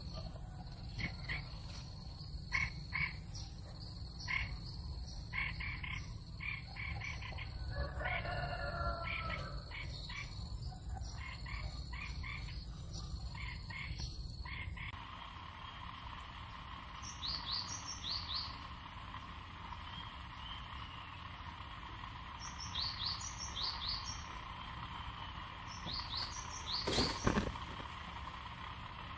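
Natural ambience of short high chirps from small animals, in quick groups, over a steady high insect whine and a low rumble. About halfway through the background changes abruptly, the whine stops and the chirps come in short clusters of two or three, with one sharp sound near the end.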